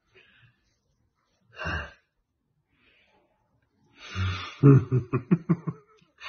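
A man laughing: a short breathy gasp about one and a half seconds in, then from about four seconds in a breathy rush that breaks into a quick run of short laughing pulses.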